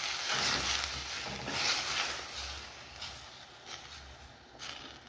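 A spoon stirring coconut milk and water in a cooking pot, the liquid swishing in repeated strokes about once a second, dying down after about three seconds.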